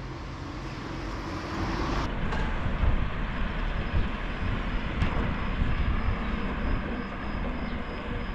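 Low rumble of a passing motor vehicle and street noise, growing louder about two seconds in, with a faint steady high-pitched whine from about four seconds in.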